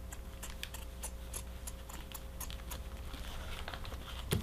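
Scissors snipping through cut-away embroidery stabilizer: a run of short, irregular snips over a low steady hum.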